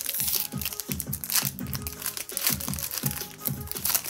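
Foil and plastic packaging of Pokémon card packs crinkling and rustling as it is handled, in short bursts, over background music.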